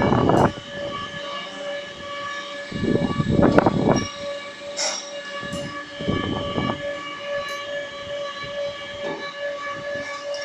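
Electric motor and pump unit of a chakali, murukku and idiyappam pressing machine running with a steady whine. Louder surges of rough noise come at the very start, around three to four seconds in, and around six seconds in.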